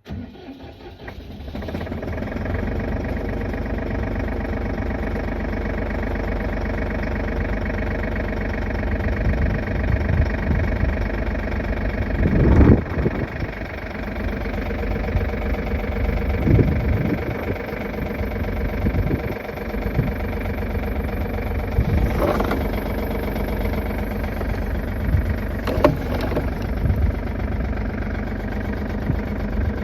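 Tractor engine coming up to a steady idle, with a few sharp metallic clunks about twelve, twenty-two and twenty-six seconds in.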